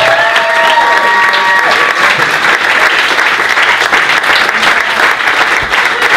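Audience applauding steadily with dense clapping. A final held chord from the small string-and-piano ensemble rings under it for the first couple of seconds and then stops.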